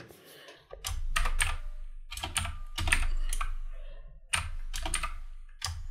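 Typing on a computer keyboard: runs of quick key clicks in about four short bursts, separated by brief pauses.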